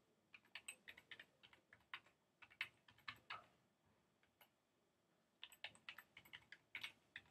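Faint computer keyboard typing: quick runs of keystrokes, with a pause of about two seconds midway.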